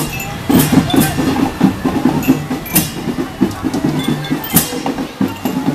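School marching drum band playing a fast, driving beat on tenor (multi-tom) and snare drums, with a loud crash about every two seconds.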